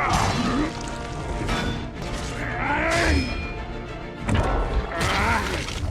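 Dramatic film soundtrack: music with booming impacts and heavy thuds, loudest near the start, about three seconds in, and again near the end.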